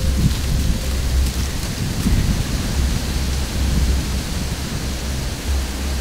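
Wind buffeting an outdoor microphone: a low rumble that swells and drops in gusts over a steady hiss.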